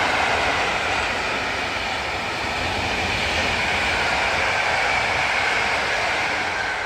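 Passenger coaches of an express train passing at speed behind an electric locomotive: a steady rush and rumble of wheels on the rails.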